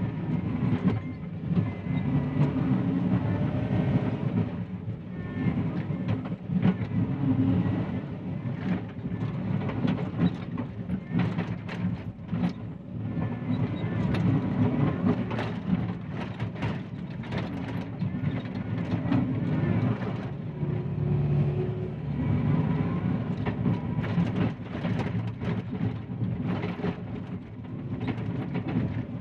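John Deere 333E compact track loader's diesel engine running steadily under load, with frequent irregular clanks, knocks and scrapes from the bucket and steel-tracked undercarriage as it digs in the trench.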